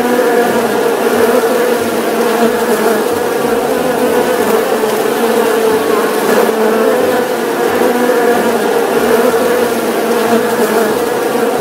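Honeybees buzzing in a steady, unbroken drone.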